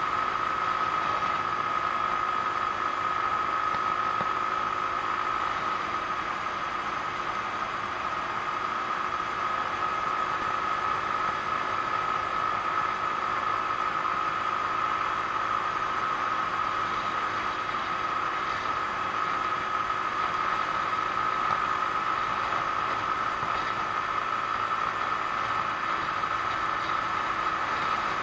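Genuine Buddy 125 scooter's single-cylinder four-stroke engine running at a steady cruising speed: a constant, even-pitched drone over a steady rush of wind and road noise on a chest-mounted camera.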